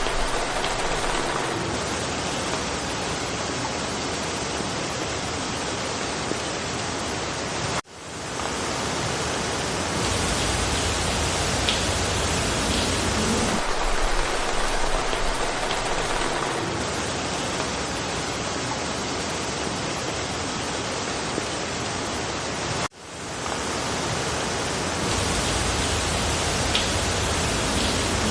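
Steady rain falling through a forest, an even hiss. Twice, about 8 and 23 seconds in, it cuts out abruptly and fades back in, where the looped recording restarts.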